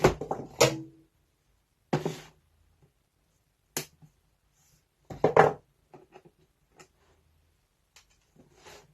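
Handling a plastic tool-kit case: scattered plastic clicks, knocks and short rustles, with the loudest cluster about five seconds in.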